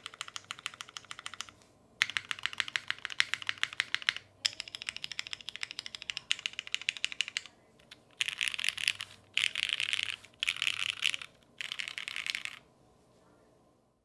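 Fast typing on a Forever65 mechanical keyboard with linear Cherry MX Black Ultraglide switches on a UHMWPE plate and ABS GMK keycaps. The keystrokes come in runs with short pauses between them. From about eight seconds in there are four shorter, denser, brighter runs of keypresses, and the typing stops a little over a second before the end.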